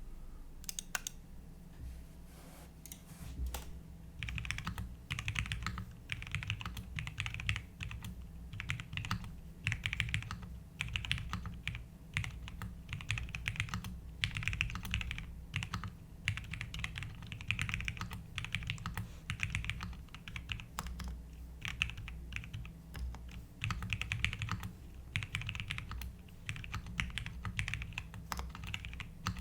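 Typing on a QK60 custom 60% mechanical keyboard with Cherry MX Black linear switches: a continuous stream of keystrokes that comes in denser bursts about once a second.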